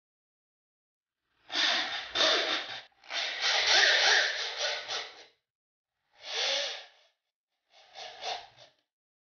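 Cordless drill driving screws through a metal bracket into a board, in five short bursts of a second or two each.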